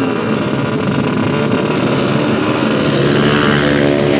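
Several two-stroke drag motorcycles running at high revs together. Over the last second or so one climbs sharply in pitch as it accelerates hard.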